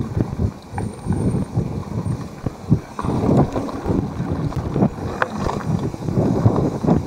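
Mountain bike ridden over a rough trail: wind rumbling on the camera's microphone, with a dense run of irregular knocks and rattles from the bike.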